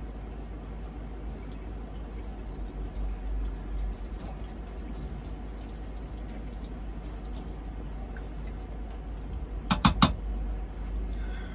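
A spoon being rinsed at a kitchen sink, with water trickling and dripping. Near the end there is a quick run of three or four sharp knocks.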